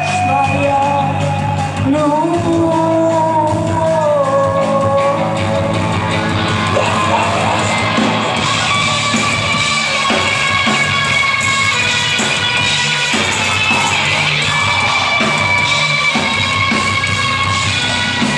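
Live rock band playing loudly, with a sung and shouted vocal line over guitars and drums for the first several seconds, then the full band carrying on without the voice.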